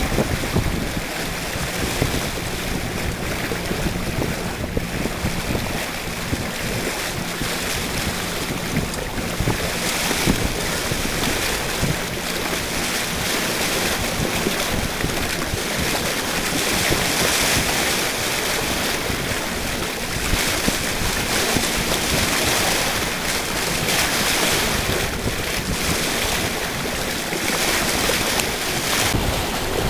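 Wind buffeting the microphone over a steady wash of water along a moving boat, with a faint steady low hum through the first dozen seconds or so.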